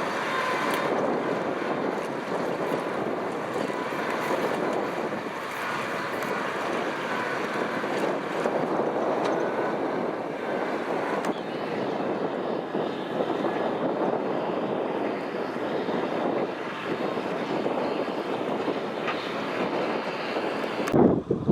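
Kubota M6040SU tractor's diesel engine running steadily under load while ploughing, cut off abruptly just before the end.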